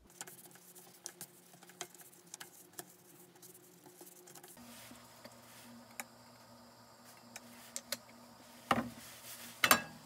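Kitchen clatter at a gas stove: scattered light taps and clicks of utensils and dishes, then two louder knocks near the end as the frying pan is handled over the burner. A steady low hum comes in about halfway.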